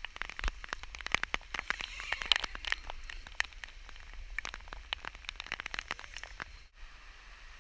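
Heavy thunderstorm rain, with many individual drops striking close by as quick, sharp ticks over a steady hiss. Near the end it changes abruptly to a smoother, even hiss.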